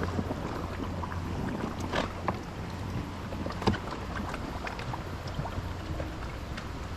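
Raft on a river: a steady low rush of water, with a few short knocks, the loudest about two seconds in.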